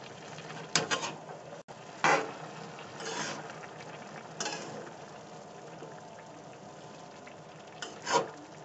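Metal spoon stirring grated carrots and milk in a large metal pan (kadhai) for carrot halwa: several short scraping strokes against the pan at irregular intervals, two close together near the end, over a steady low hiss.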